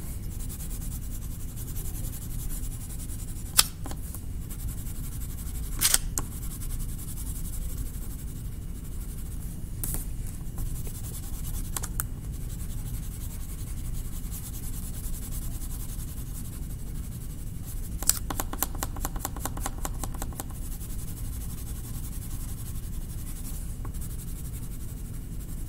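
Colored pencil working on paper: scattered light scratches and a few sharp taps, with a quick run of rapid back-and-forth strokes about two-thirds of the way through, over a steady low room hum.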